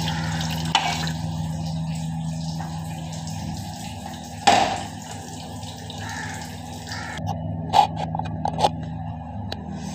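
Broth water being poured into a pot of mutton and potato curry, a hissing wash of liquid. About four and a half seconds in comes one loud metal clank, then a few lighter clinks of metal kitchenware near the end, over a steady low hum.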